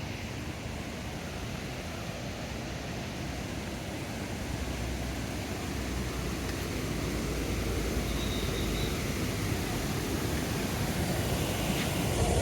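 Low, steady vehicle engine rumble that grows gradually louder.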